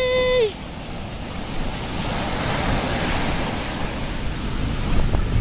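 Ocean surf washing on a beach with wind buffeting the microphone. A held, pitched, voice-like call cuts off about half a second in.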